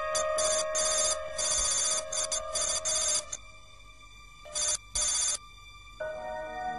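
Computer-terminal text readout sound effect: rapid high electronic trilling in stop-start bursts over a steady electronic drone, falling away about three seconds in with one more short burst near five seconds. A soft music chord comes in near the end.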